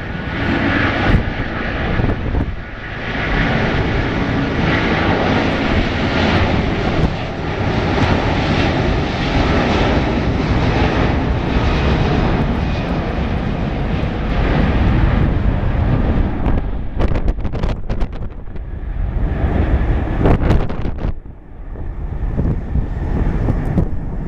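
Airbus A330-243's twin Rolls-Royce Trent 700 turbofan engines at takeoff thrust during the takeoff roll and rotation: loud, steady jet noise.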